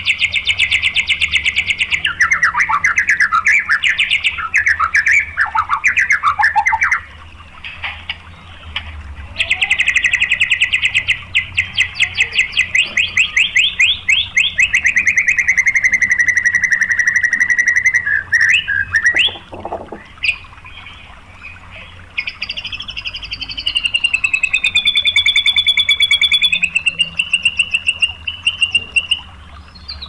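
White-rumped shama (murai batu) singing in long runs of very fast repeated notes, the rapid-fire 'tembakan' phrases. There are two long runs with a short pause between them, and the second slows and drops in pitch. A few separate notes follow, then near the end a fast pulsing phrase that glides down and back up.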